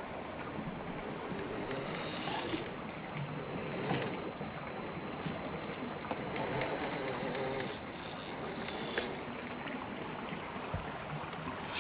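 Steady rush of flowing stream water, with the electric motor and geared drivetrain of an Axial SCX10 III RC rock crawler whining in changing pitch as it crawls over boulders.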